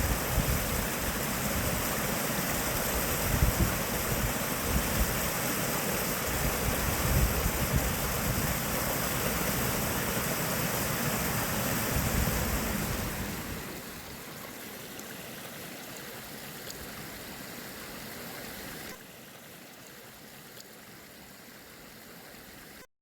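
Water of small cascading waterfalls rushing steadily. The sound drops quieter about 13 seconds in and again about 19 seconds in, then cuts off suddenly near the end.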